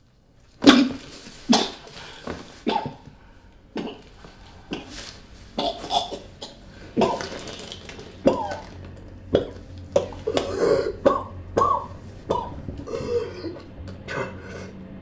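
A person coughing hard again and again, with gasps and grunts between the coughs. The first cough, about a second in, is the loudest.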